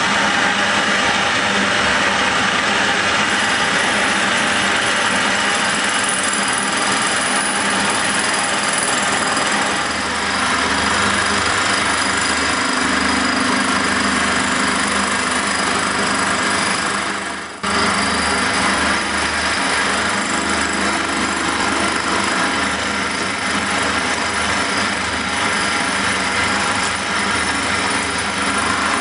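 A metalworking machine tool runs steadily while it cuts a metal casting. The sound drops briefly and then resumes abruptly a little past halfway.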